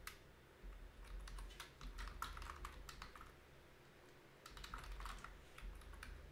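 Quiet typing on a computer keyboard: two runs of keystrokes separated by a pause of about a second in the middle.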